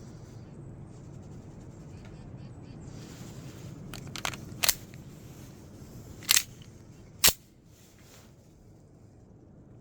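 Airsoft Beretta pistol giving a few sharp snaps: three close together about four seconds in, another about a second and a half later, and the loudest one about a second after that. A steady low noise sits underneath and drops away after the last snap.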